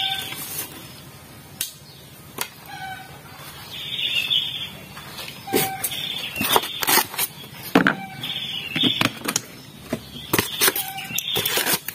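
A slab of styrofoam being snapped and broken into small pieces by hand, giving sharp crackles and squeaky creaks in the second half. Short high chirps repeat every second or two throughout.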